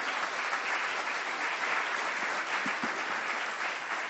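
Audience applauding, a steady, even clapping.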